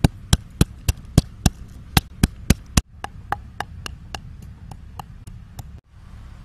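Wooden pestle pounding chillies and garlic in a clay mortar: a steady run of sharp knocks, about three a second. After a brief break about three seconds in, a second, softer run of knocks follows.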